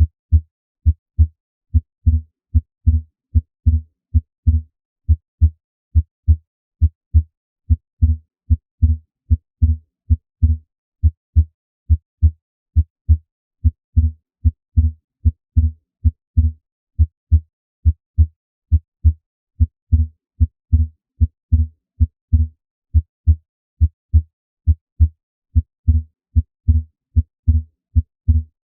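Heart sounds heard through a stethoscope: a steady rhythm of dull, low lub-dub beats, a first sound and a second sound with each beat. The second sound is a physiologic (transient) split S2, its two parts, aortic then pulmonic valve closure, drawing further apart on inspiration, which is a normal finding.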